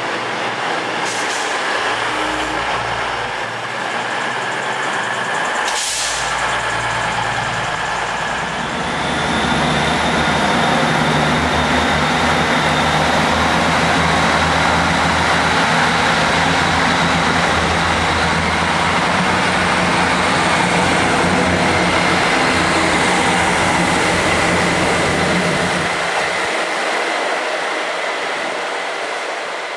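Diesel passenger trains at a station: a passing train's rumble with two sharp clicks, then a diesel multiple unit's engines running loudly with a thin rising whine. The engine sound drops away near the end.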